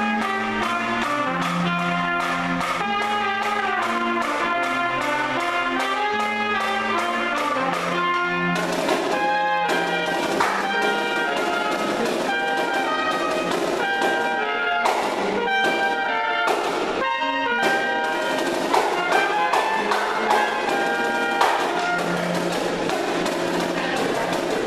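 Trumpets and a clarinet playing a jazz-fusion tune in ensemble over a repeating bass line and a steady drum beat.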